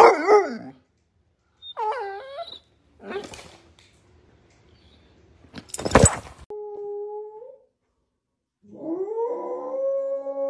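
Basset hound puppy giving two short pitched bays in the first few seconds, followed by a sharp crack about six seconds in. From about nine seconds a dog begins a long howl that rises and then holds a steady note.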